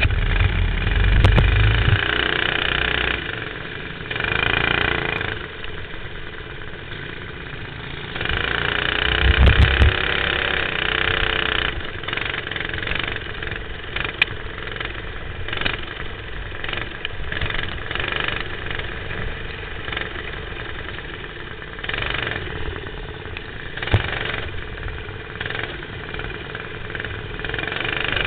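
Dirt-oval racing kart engine heard from on board, revving hard and lifting off in turn. Long loud runs near the start and again around a third of the way in give way to a quicker rise and fall as it works the corners.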